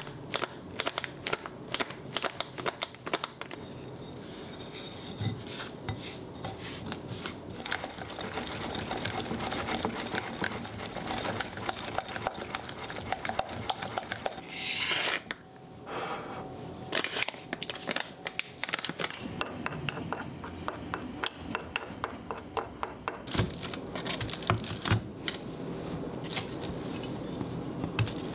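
A utensil scraping and clicking rapidly against a glass mixing bowl as cake batter is mixed. Near the end, a knife chops a chocolate bar on a wooden cutting board, with sharper strikes.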